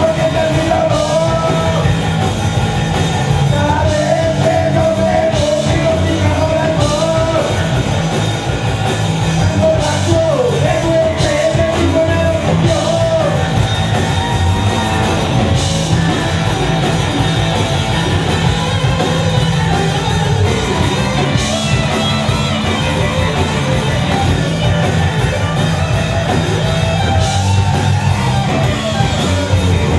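Live blues-rock band playing loud, with drum kit, bass guitar and distorted electric guitar, and a male voice singing over it. Long held notes stand out in the first dozen seconds, then the playing turns denser.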